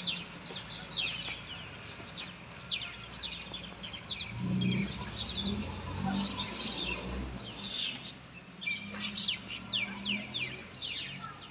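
Small birds chirping busily, with many short, quick, falling high chirps overlapping. A low hum sits underneath from about four seconds in until near the end.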